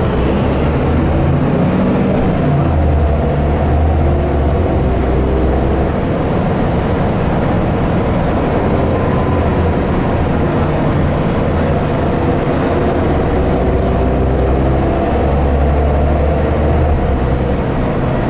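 Mercedes-Benz O408 city bus's diesel engine running under way, heard from inside the passenger cabin, with road noise. The engine note rises and falls, and a faint high whine comes and goes twice.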